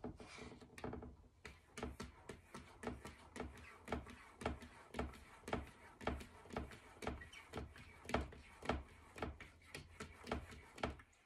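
A cat's paws rubbing and tapping against mirror glass in a steady rhythm of about two strokes a second.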